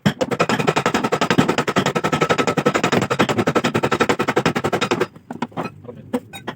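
Rapid, even run of sharp impacts, about a dozen or more a second, from a power tool working car body sheet metal; it runs for about five seconds and stops suddenly, followed by a few scattered knocks.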